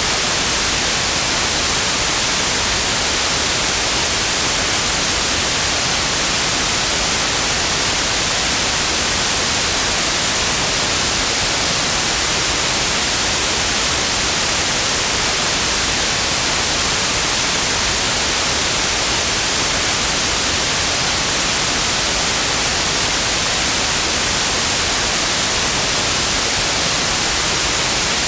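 Steady synthetic white noise: an even, unchanging hiss with the most energy in the highs.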